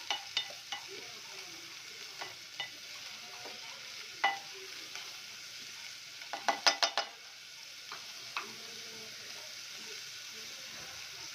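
Chopped onions sautéing in hot oil with a steady sizzle, while a wooden spatula stirs and knocks against the pot; a quick run of about five knocks comes a little past halfway.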